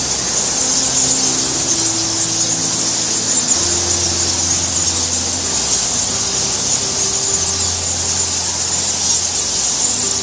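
A roosting colony of fruit bats squeaking and chittering: a dense, high-pitched chatter of many overlapping calls, loud and unbroken.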